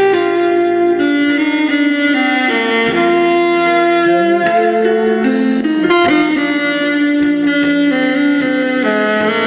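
Alto saxophone playing a slow, sustained melody over a guitar accompaniment.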